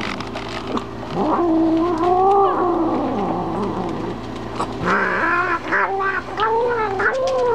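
Domestic cat growling and yowling over its food, a warning to a dog to keep away while it eats. Two long, wavering calls, one about a second in and another from about halfway to the end.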